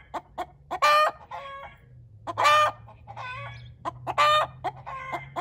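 Chicken clucking and calling: three loud, short, harsh calls about a second and a half apart, each followed by a softer call, with short clucks in between.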